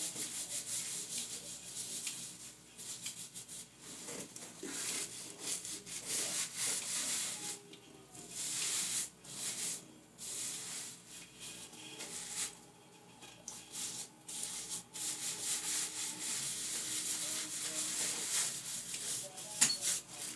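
Gloved hands scrubbing shampoo into hair and scalp: a rough rubbing, scratching noise in irregular strokes with short pauses.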